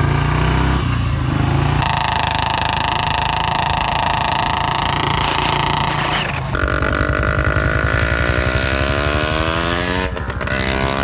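Motorcycle engine running loud as the bike rides off and passes, with a steady high-pitched tone over it from about two seconds in until about six seconds in.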